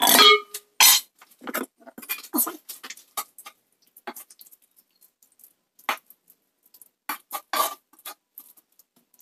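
Wooden spatula scraping and knocking against a non-stick wok as stir fry is pushed out onto a plate: a loud knock at the start, then scattered short scrapes and taps with quiet gaps between.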